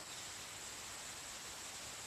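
Faint outdoor ambience: a steady high-pitched insect drone over an even hiss.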